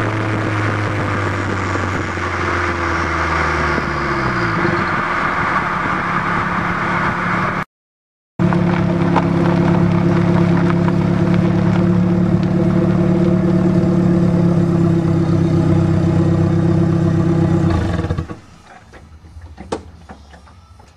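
Exhaust of a Dodge Aries running a turbocharged Shelby Z engine, heard from beneath the car under way: a steady engine drone that falls in pitch a few seconds in, a brief gap of silence, then steady running again until the sound drops away sharply near the end, leaving a few faint clicks.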